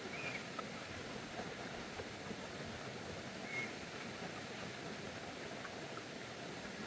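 Steady, even background noise with two short high chirps, one near the start and one about three and a half seconds in.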